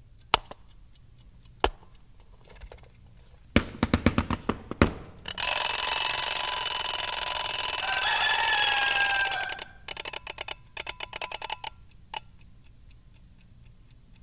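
Mechanical alarm clock sounding in place of a time signal's tone: a couple of single clicks and a clattering flurry, then its bell rings loudly for about four seconds and stops, followed by a run of quick clicks.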